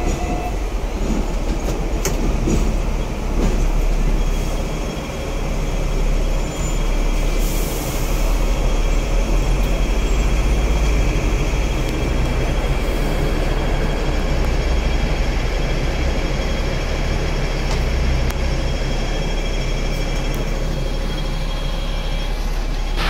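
Double-decker electric tram running along its street track, heard from on board: a steady low rumble of wheels on rails with a thin, steady high whine through much of it.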